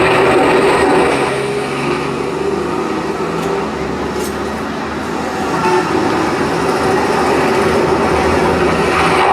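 Steady vehicle noise, a continuous rumbling traffic or train-like sound effect played back for the comic taxi act.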